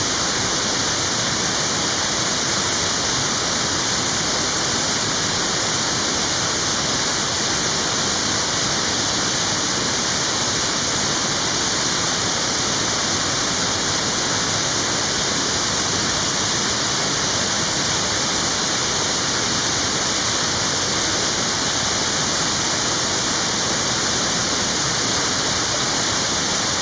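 A waterfall rushing steadily: an even, unbroken wash of falling water, strongest in its hiss.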